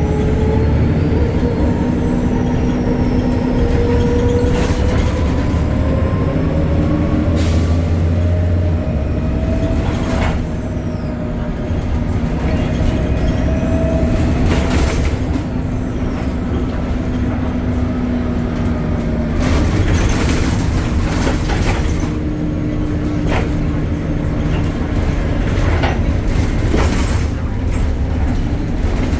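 BredaMenarini Avancity Plus city bus under way, heard on board: its Deutz diesel and ZF gearbox run steadily, with a whine that rises slowly in pitch over the first half. Several sharp knocks and rattles sound through the ride.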